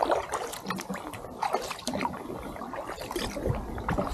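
Kayak paddle blades dipping into calm lake water, with irregular splashes and water trickling and dripping off the blades between strokes.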